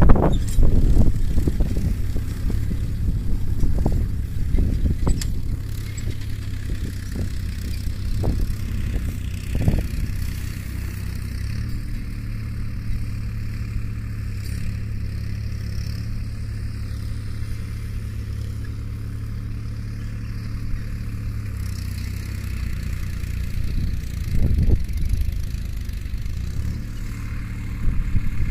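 Sonalika mini tractor's diesel engine running steadily while pulling a nine-tine cultivator through the field. A few knocks and clatter come through in the first ten seconds and again later on.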